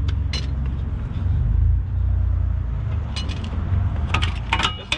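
A loud, uneven low rumble with a few sharp metallic clinks of hand tools and a socket extension against the truck's wheel hub and caliper bracket, near the start and again toward the end.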